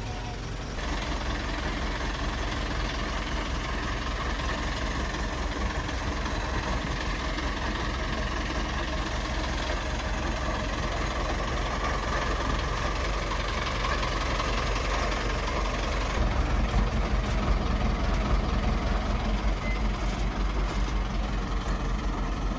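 Robur LD2002A truck's air-cooled diesel engine running steadily with a low, even rumble, growing louder about sixteen seconds in.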